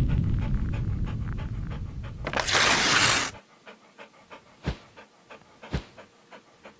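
A rumble fades out, then a whoosh lasts about a second, starting around two and a half seconds in. After it, a dog pants in short, quick breaths, about three a second.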